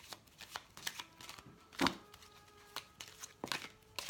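A deck of oracle cards being shuffled by hand: a string of papery slaps and rustles as the cards slide over one another, the loudest slap about two seconds in.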